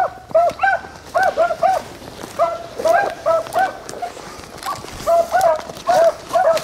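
Beagles giving tongue while running a rabbit: short, arched yelps, about three a second, with a brief lull about four seconds in. The baying is the sign that the pack is on the rabbit's scent.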